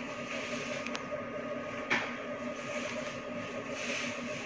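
Steady mechanical hum with a faint hiss, and a light tap a little under two seconds in.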